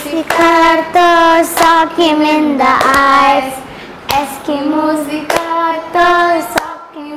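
A young girl singing a children's action rhyme in short phrases of held notes.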